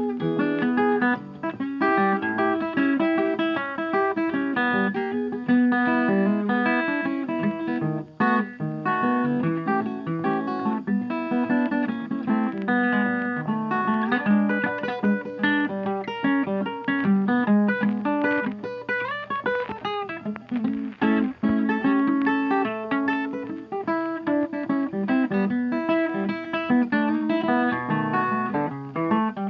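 Background music: fast plucked acoustic guitar playing a busy run of notes.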